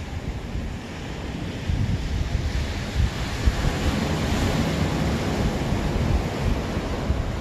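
Wind buffeting the microphone over the steady wash of ocean surf, with the surf hiss swelling about three to five seconds in.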